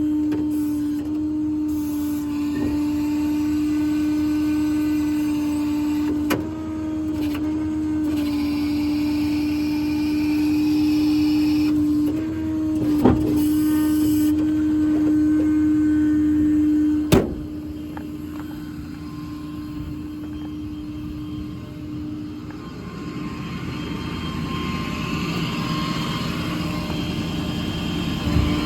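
Ford F550 service truck's 6.7 Power Stroke diesel running with a steady whine from its engine-driven equipment, broken by sharp clicks about six, thirteen and seventeen seconds in. After the last click the whine drops away and a rougher running sound builds toward the end.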